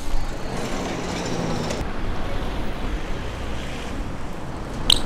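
Steady wind rumble on the microphone with a BMX bike rolling across concrete, and a short sharp squeak near the end.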